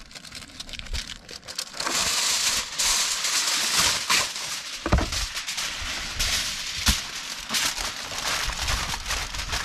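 Aluminum foil crinkling and crumpling as fish fillets are wrapped into a foil packet, loudest about two seconds in, with a couple of sharper crackles later.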